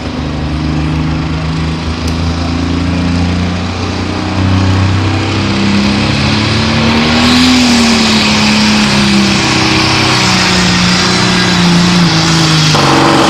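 Deutz super stock pulling tractor's diesel engine revving under load as it pulls the sled, its pitch rising and falling. It gets louder about four seconds in, and a high hiss joins about seven seconds in.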